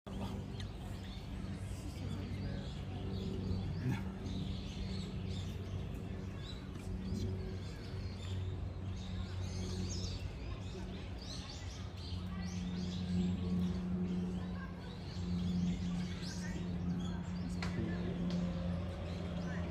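Outdoor ambience: small birds chirping here and there over a steady low hum.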